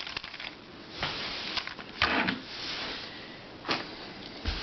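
Hands handling and turning a plastic Rubik's-cube-style twisty puzzle: scraping plastic, twice, and a few sharp clicks near the end.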